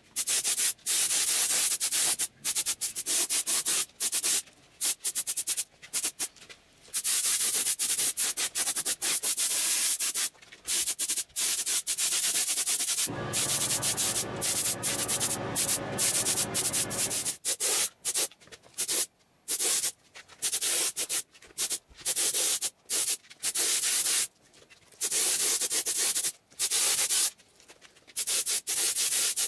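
Harsh, hissing noise in many short bursts that start and stop abruptly. A steadier, lower hum joins it for about four seconds in the middle.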